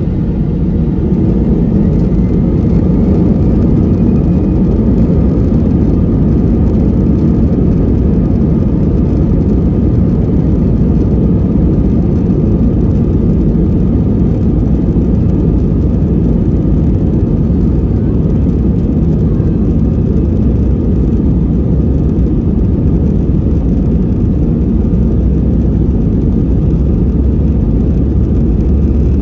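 Steady low rumble of an Airbus A320's jet engines heard inside the cabin from a seat over the wing, as the airliner moves along on the ground.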